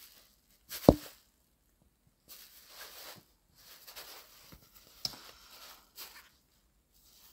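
Handling noise on a hand-held phone's microphone: one sharp knock about a second in, then soft intermittent rustling with a small click near the middle.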